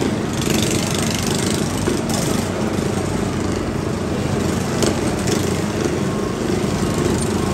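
Several riding lawn mower engines running together, a steady, continuous engine din.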